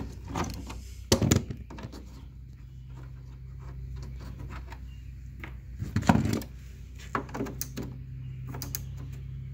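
Scattered knocks and clatter of objects being handled on a wooden workbench, with a sharp knock about a second in and a louder thump around six seconds in, over a steady low hum.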